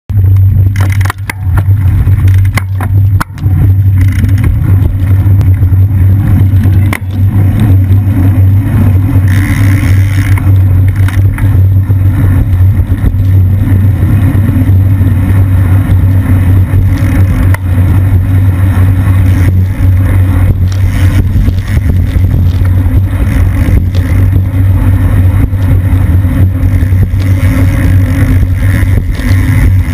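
Steady low wind rumble buffeting the microphone of a camera mounted on a road bicycle riding in a race pack at about 20 mph. A few sharp knocks come in the first seven seconds or so, likely from road bumps jolting the mount.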